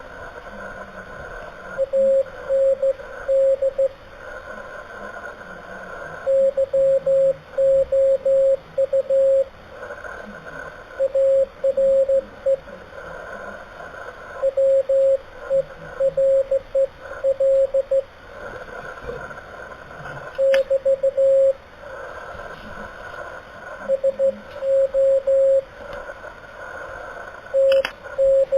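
Slow Morse code heard over an amateur radio: a single steady tone keyed on and off in dots and dashes over radio static and hiss. Two brief clicks come about two-thirds of the way through and near the end.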